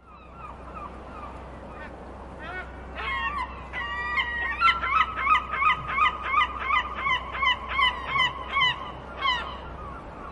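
Gulls calling: scattered cries at first, then a rapid series of short, loud calls at about three a second in the middle of the stretch, over a low steady rumble.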